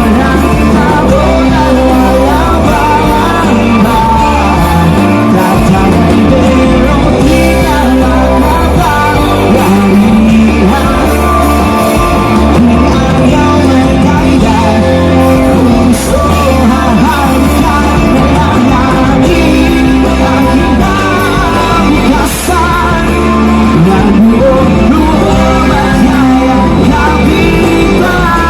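Loud amplified music with a singer over a rock-style band accompaniment.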